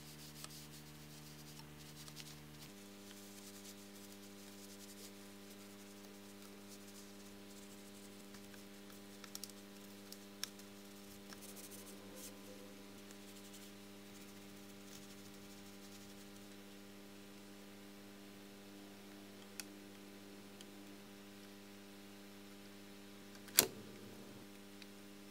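Faint steady electrical hum under quiet handling of a tape recorder's metal deck parts: a few soft clicks, light rubbing of a cloth over the tape heads about halfway through, and one sharp click near the end.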